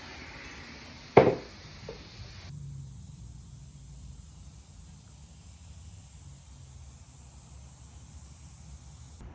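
A single sharp knock about a second in, followed by a faint tap, then only a low, steady background hum.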